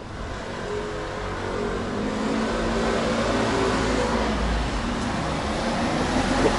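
Street traffic: a car's engine running and growing steadily louder as it approaches along the road.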